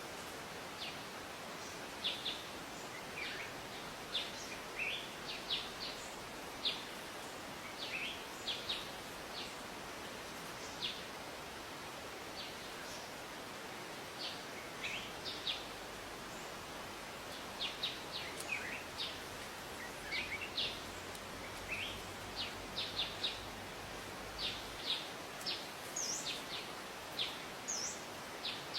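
Wild birds chirping: many short, high chirps and quick downward-sweeping notes at an irregular pace, over a steady hiss of outdoor background noise.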